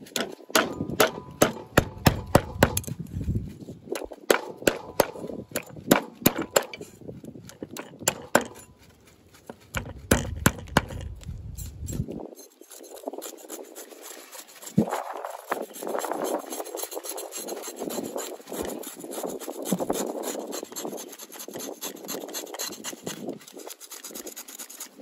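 A blade working a fish on a wooden chopping block: a run of sharp knocks of the blade on the wood for the first eight seconds or so, then from about halfway a steady rasping scrape.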